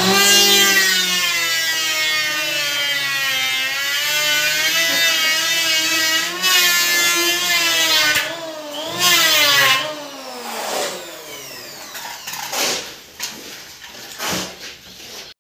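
Electric hand planer running as it cuts along a wooden board, its motor whine rising at the start and dipping and rising in pitch as it works. It surges again a little before ten seconds, then winds down, with a few short bursts near the end.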